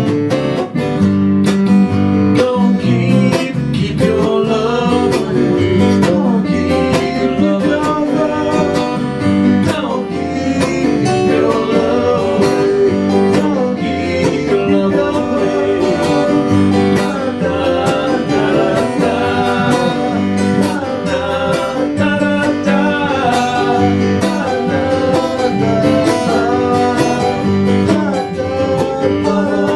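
Acoustic guitar music with strummed chords: an instrumental stretch of a country-style song, with a melody line that bends in pitch above the chords.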